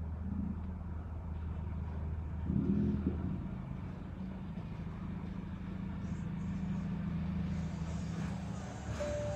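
A car engine running steadily, with a short louder burst about three seconds in.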